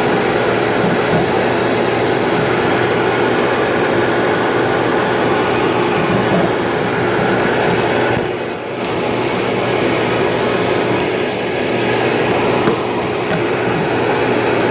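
Vacuum cleaner running steadily with a narrow crevice attachment worked in among a refrigerator's condenser coils, a hissing rush with a steady hum under it. The noise dips briefly about halfway through.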